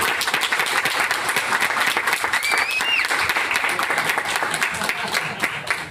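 Small audience applauding, many hands clapping steadily, with a brief high whistle-like tone that rises and falls about two and a half seconds in.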